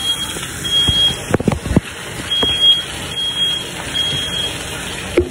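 Smoke alarm sounding high, steady beeps in groups of three, with a pause after each group. A few sharp clinks of a utensil against a pan come in a little over a second in.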